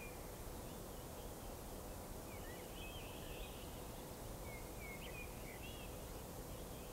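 Faint outdoor ambience: scattered short bird chirps and wavering whistled calls, clustered a little before the middle and again about five seconds in, over a steady low hiss.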